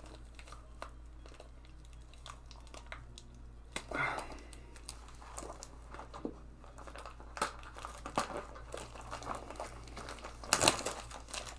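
Clear plastic shrink wrap crinkling and tearing as it is pulled off a box of trading cards: scattered faint crackles, with louder rustles about four seconds in and near the end.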